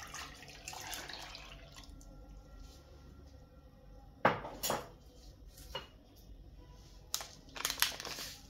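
Kitchen handling sounds: liquid pouring or splashing for about the first two seconds, then several sharp knocks and clinks of dishes or glassware set down on a countertop, two about halfway through and a cluster near the end.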